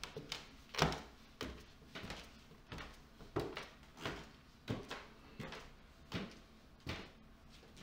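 Footsteps climbing a wooden staircase: a steady series of about ten thuds, roughly one every two-thirds of a second.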